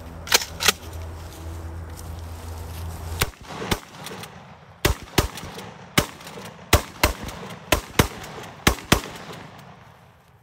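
DP-12 double-barrel pump-action 12-gauge shotgun fired about fifteen times, many of the shots in quick pairs.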